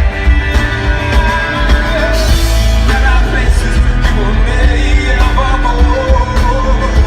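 Live rock band playing loud, with singing over heavy bass and drums.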